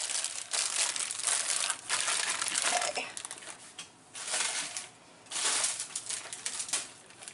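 Plastic food wrappers crinkling and rustling as packaged snacks are handled and taken out of a box, in several stretches with short pauses.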